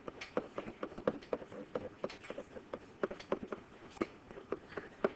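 Quick irregular clicks and taps of a pen drawing short strokes on a hard writing surface, several a second.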